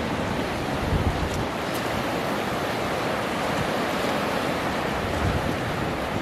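Ocean surf breaking and washing up the beach: a steady rush of waves.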